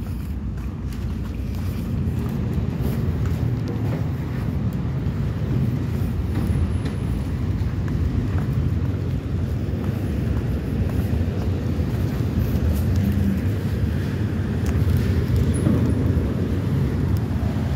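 Steady low rumble of a docked car ferry heard from its open deck. It grows a little louder about two seconds in and swells again near the end.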